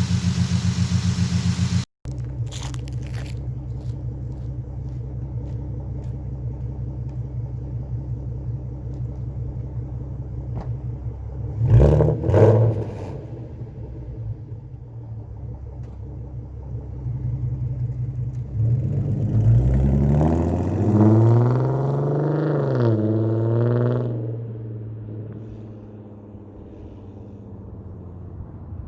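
2015 Ford Mustang's 3.7-litre V6 engine running with a freshly replaced water pump. The revs rise briefly twice about twelve seconds in, then climb and fall again for several seconds from about nineteen seconds before settling to a steady lower note.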